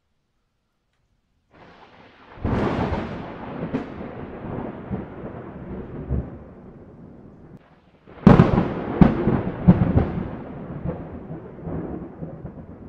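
Thunder: a clap about two seconds in that rumbles and slowly fades, then a louder, sharper crack about eight seconds in, with a few more cracks before it rolls off into a long rumble.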